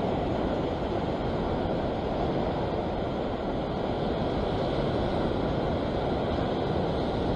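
Steady wash of sea waves surging over the rocks, with wind on the microphone.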